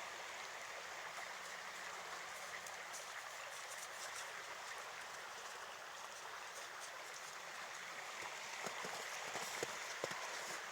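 Steady rush of flooded river and brook water, faint and even, with scattered light taps in the last few seconds.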